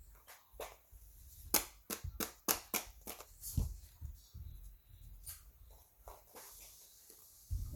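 Fidget toys clicked and tapped by hand for ASMR: a run of sharp clicks, quickest and loudest from about one and a half to three and a half seconds in, with soft handling rumble between them.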